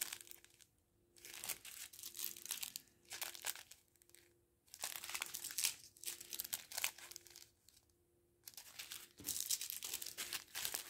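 Thin clear plastic bags and bead sachets crinkling as they are handled, in four or so bursts with short pauses between.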